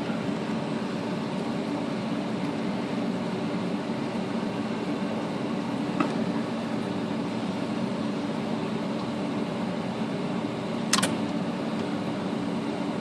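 A steady background machine hum, with two sharp metallic clicks from a wrench working a nut inside a typewriter's mechanism. The first click is light, about six seconds in, and the second is louder, about eleven seconds in.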